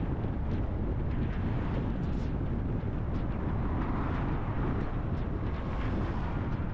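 Steady wind and road noise of a car being driven: tyre noise on the pavement with wind rushing over the microphone, swelling slightly around the middle.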